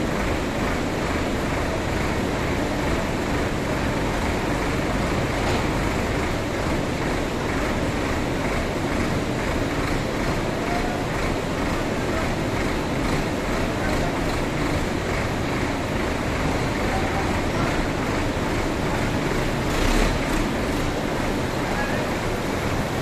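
Solis 6024 tractor's diesel engine running steadily while its front loader lifts, dumps and backs away, with a brief thump about 20 seconds in.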